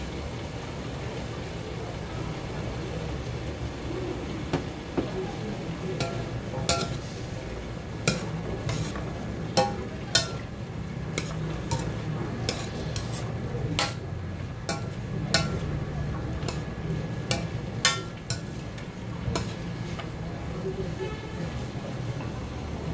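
Minced pork and diced vegetables frying in a stainless steel wok with a steady sizzle. From about six seconds in, a metal spatula stirs the mix, with sharp clinks and scrapes against the pan that stop a few seconds before the end.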